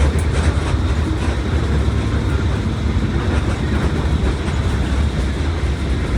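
Mercedes-Benz OF1721 BlueTec 5 bus running on the move, heard on board: a steady, deep rumble from the engine and drivetrain with road noise over it.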